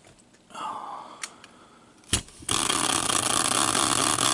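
A homemade prize wheel, a large caster wheel on a wooden stand, set down with a knock about two seconds in and then spun by hand, whirring steadily on its axle.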